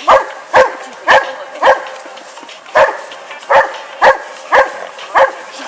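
A dog barking repeatedly, about two barks a second, nine barks in all with a pause of about a second after the fourth.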